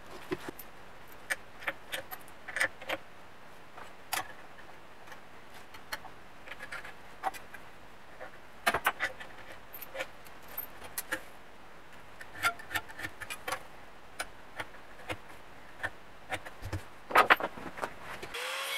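Scattered small clicks and light metallic taps of parts and tools handled at a workbench while a gasket is fitted onto a metal adapter plate, over a faint steady hiss. A quick cluster of louder clicks comes near the end.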